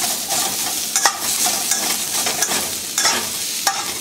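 Sliced onions, celery, ginger and garlic sizzling in hot oil in a carbon steel wok. A metal spatula stirs them and scrapes and clinks against the wok several times, unevenly spaced, over a steady sizzle.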